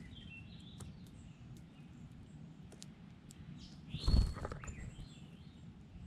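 Small birds chirping now and then over a steady low outdoor rumble, with scattered faint ticks. About four seconds in comes a loud, low thump, the loudest sound here, with a brief high chirp on top of it.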